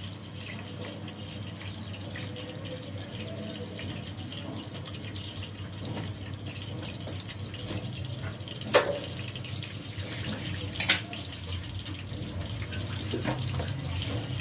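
Water running from a kitchen tap into a steel sink, with two sharp knocks about nine and eleven seconds in.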